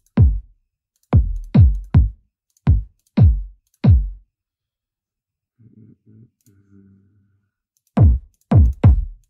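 Electronic kick drum samples auditioned one hit at a time, each a punchy thump that drops quickly in pitch into a deep low end. About seven hits in the first four seconds, a few faint short low tones in the middle, then more kicks near the end.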